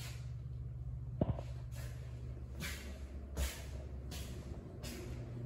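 Steady low hum of an empty room, with soft swishes about once a second from the person walking with the handheld camera, and one sharp click about a second in.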